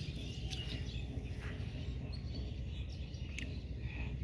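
Open-field ambience with a steady low rumble and faint bird chirps, over light sloshing of hands working through shallow muddy water.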